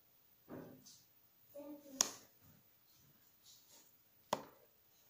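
Two sharp clicks of the plastic buttons on top of a Redmaine MS-208BT Bluetooth speaker being pressed, about two seconds and four seconds in. Faint voice-like sounds come before the first click.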